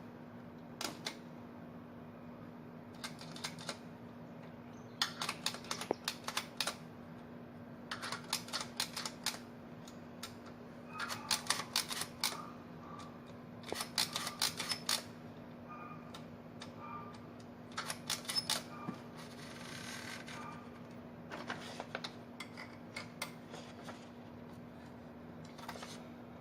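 Olivetti Lettera 35i manual portable typewriter being typed on: quick runs of type-bar strikes in bursts of a second or two with short pauses between.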